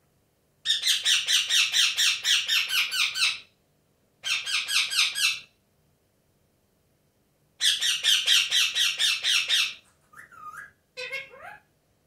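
Indian ringneck parakeet screeching in three runs of rapid harsh calls, about six a second, then softer warbling chatter with sliding pitch near the end.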